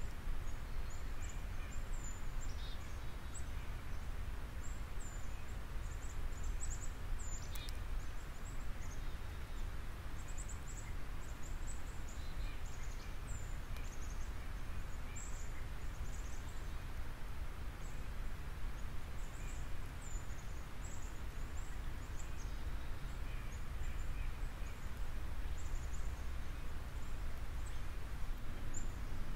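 Steady low background rumble with frequent short, high chirps of small birds in the distance. One sharp snip of small pruning scissors about seven and a half seconds in.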